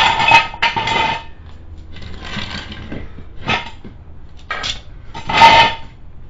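Metal hand tools clinking and scraping in several short bursts, the loudest near the end.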